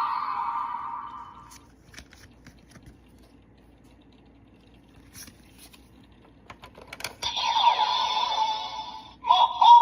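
Plastic clicks of a DX Kamen Rider transformation toy being handled, between electronic sound effects from the toy's small speaker: one fades out during the first second or so, and another starts just after a few clicks about seven seconds in, with a sudden loud sound near the end.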